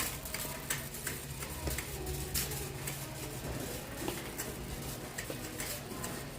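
Indoor background noise: a steady low hum under scattered light clicks and knocks.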